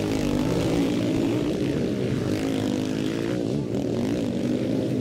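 Motocross sidecar outfits' engines running hard on the track, their pitch rising and falling as the riders rev and ease off, with more than one engine heard at once.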